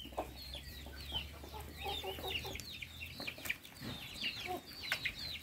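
Chickens clucking, with a steady stream of short high chirps.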